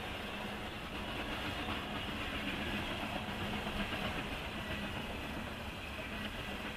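Norfolk Southern coal train rolling past, picked up by a dashcam microphone: a steady rumble and rail noise.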